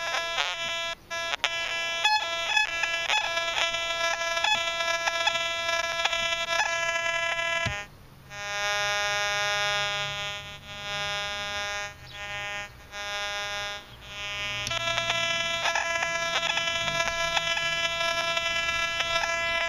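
Metal detector audio from a 6x10 double-D search coil: a buzzy target tone, choppy and broken up at first. Partway through it switches to the lower pinpoint tone, which swells and fades four or five times as the coil passes back and forth over the target, and then the broken search tone returns.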